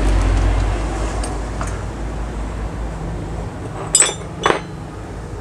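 Two sharp metallic clinks about half a second apart near the end, from CNC-machined metal motorcycle shifter parts being handled and set down. A low rumble fades away over the first few seconds.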